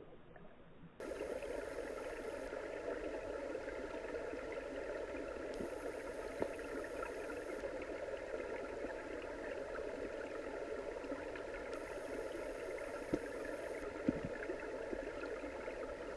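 Muffled underwater ambience picked up by an action camera in its waterproof housing. It is faint and dull for about a second, then becomes a steady rush with a few faint clicks. A thin high whine comes and goes three times.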